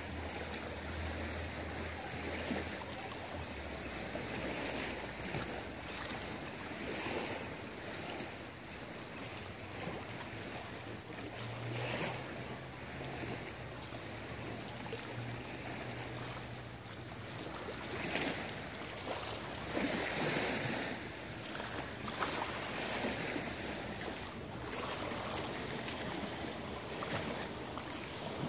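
Small lake waves lapping and washing against the shore and around a rock at the water's edge, swelling every second or two. A faint low hum comes and goes under it.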